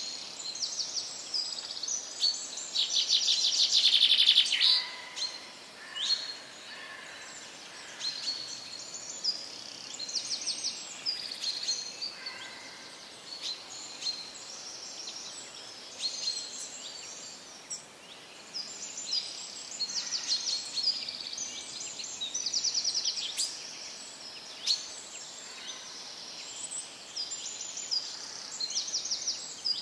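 Small songbirds chirping and singing in a busy chorus of short high calls and rapid trills, over steady background noise; the loudest trill comes about three seconds in.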